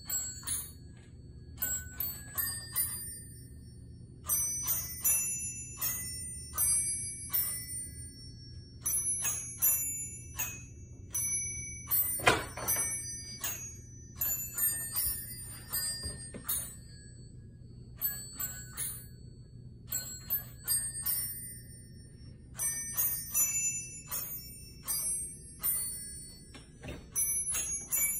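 Holiday glockenspiel chimes playing a Christmas melody: bright struck bell tones in quick runs, broken by short pauses between phrases.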